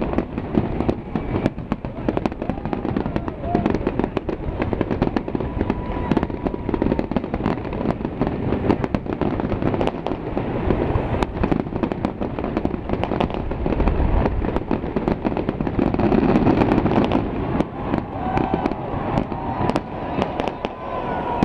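Many fireworks going off at once: a dense, continuous crackle of rapid cracks and bangs, with a few short whistles.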